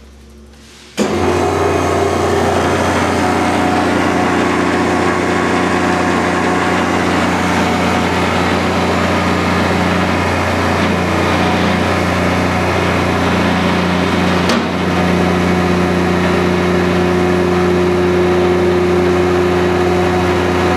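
Hydraulic power pack of a vertical baler, driven by a 10 hp three-phase electric motor, starting abruptly about a second in and then running with a steady hum. There is a single click and a slight change in tone about two-thirds of the way through.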